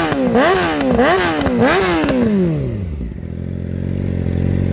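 2018 Yamaha R6 inline-four with an Akrapovic full-system exhaust being revved in quick throttle blips, with bursts of crackle at each blip. About two seconds in the revs fall away, and it settles into a steady idle.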